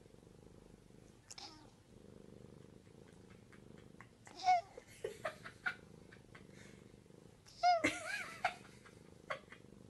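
Tabby cat purring steadily, with a few short high meows breaking in about a second in, near the middle and, loudest, near the end.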